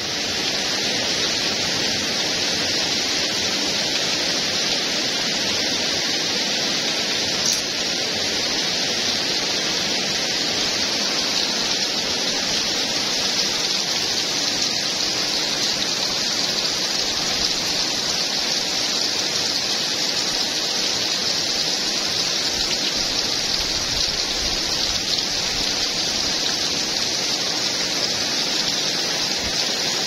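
Heavy rain pouring down steadily in a sudden storm, a dense, even hiss of falling water, with a single brief tap about seven and a half seconds in.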